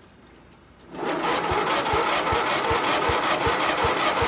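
Old lawnmower engine cranking over without catching, a steady mechanical whir with a dull thump about two or three times a second; the engine has sat unused a long time and has fresh gas in it.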